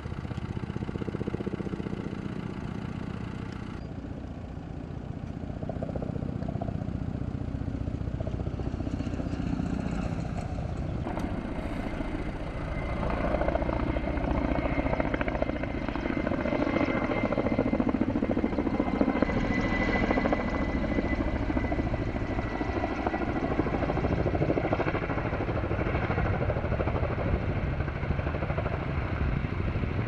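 Steady engine noise, then a firefighting helicopter carrying a water bucket, its rotor and engine louder from about halfway through.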